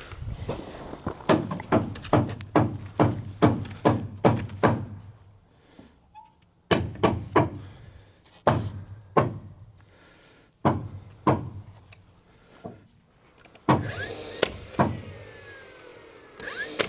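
Hammer blows on a wooden stud in quick runs of about three a second, with pauses between the runs, as the stud is knocked out of the framing. Near the end a power tool whines with a falling pitch among the blows.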